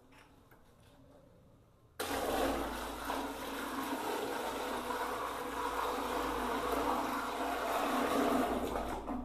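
About 15 litres of water poured from a bucket into a ceramic one-piece toilet bowl. The steady splashing starts suddenly about two seconds in. This is a leak test of the newly set toilet's seal to the floor drain.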